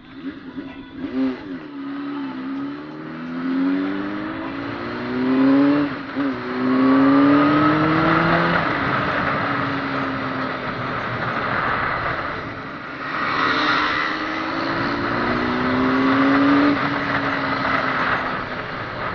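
Honda CBR600RR inline-four engine through a Two Brothers Racing exhaust, accelerating hard. Its pitch climbs in several long sweeps, each breaking off and starting again lower.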